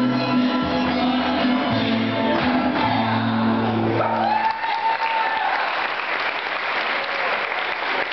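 Mexican folk dance music ends about halfway through and an audience applauds. A long high held note rises over the clapping as it starts.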